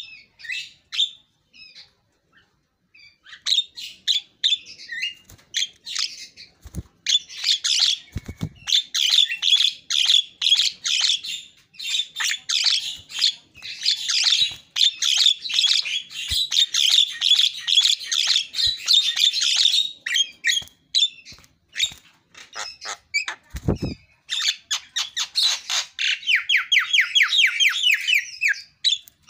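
Javan myna singing vigorously: a long, dense run of rapid, varied chattering and squawking notes. Near the end it breaks into a fast series of quickly repeated notes. A few faint low thumps sound along the way.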